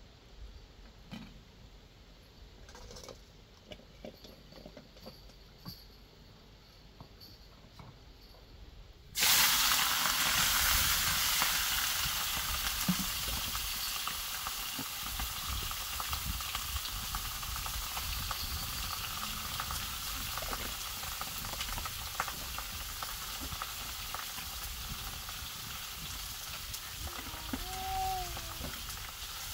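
Meat frying in hot oil in a pan over a wood fire. About nine seconds in, a loud sizzle starts suddenly as the food goes into the oil, then settles into a steady frying sizzle. Before that there are only faint small clicks and knocks.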